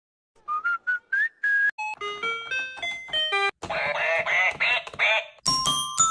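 Toy musical instruments playing short melodies. It opens with five quick notes stepping upward, then a run of toy-keyboard notes. Next comes a wavering electronic sound from a cow-shaped toy piano, and near the end a toy xylophone is struck with a mallet, its bars ringing.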